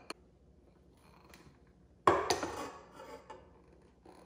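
A ceramic bowl knocks against a stand mixer's stainless steel bowl about two seconds in and rings briefly as flour is tipped in, after a small click at the start.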